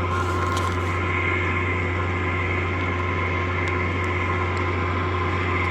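Grocery store's generator running steadily and loud: a strong, deep hum with several steady whining tones above it, unchanging throughout.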